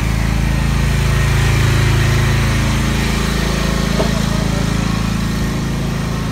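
An engine idling steadily, a low even drone.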